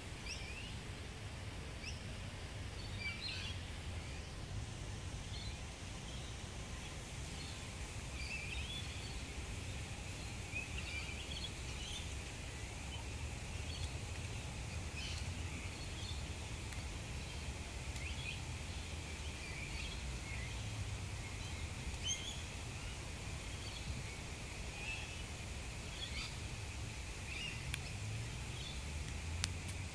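Steady low background rumble with short, faint, scattered bird chirps throughout.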